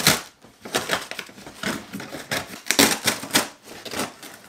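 Cardboard shipping box being torn open by hand: a run of short, irregular rips, scrapes and crackles as the cardboard flaps are pulled apart.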